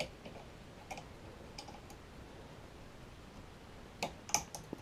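Light metallic clicks of a lever lock pick working the levers of a Union lever mortice deadlock as they are lifted under tension. A few scattered clicks come first, then a quicker cluster of louder clicks near the end.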